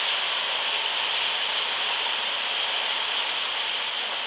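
Steady hissing rush of water along the hull of a slowly moving fishing boat, even in level throughout.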